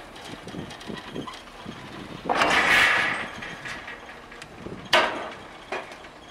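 Steam-locomotive yard sounds: a hiss lasting about a second, then a sharp metallic clank and a lighter clank just after.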